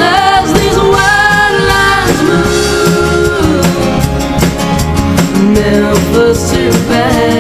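Music: a song with a singer over a band, with a steady beat.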